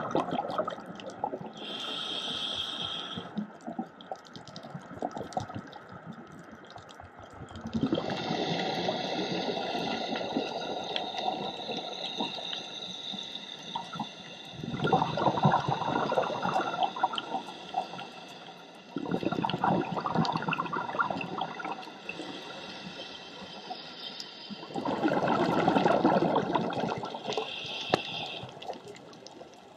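Scuba diver breathing through a regulator underwater: a short hiss of inhaled air, then four rushes of exhaled bubbles lasting a few seconds each.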